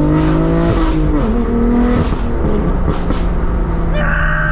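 BMW M4's twin-turbo straight-six through a straight-pipe exhaust with the valves open, heard from inside the cabin: the revs climb under hard acceleration, then drop at a shift about a second in, with a few sharp cracks, before the engine settles to a steady drone.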